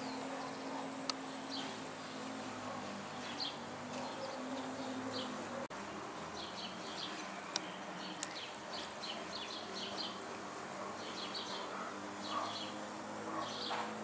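A flock of house sparrows chirping: short repeated chirps, few at first and coming thick and fast from about halfway through, over a low steady hum.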